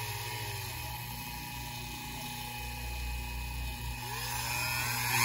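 Dremel rotary tool running a polishing wheel with polishing compound against a model locomotive's metal wheel: a steady whine whose pitch dips and rises as the tool is worked around the wheel. It grows louder near the end.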